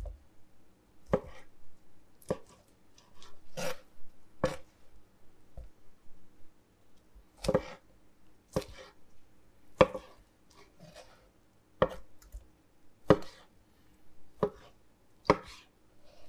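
Long slicing knife cutting down through smoked chuck roast and knocking on a wooden cutting board: about a dozen sharp chops at uneven spacing, roughly one a second, as the meat is diced into cubes.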